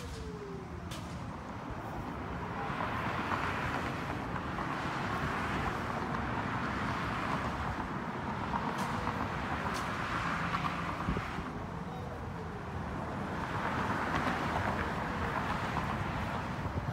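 Road traffic passing, swelling and fading every few seconds. Underneath, a distant Whelen WPS 2909 outdoor warning siren sounds faintly, its tone rising and falling in slow sweeps during its long test signal.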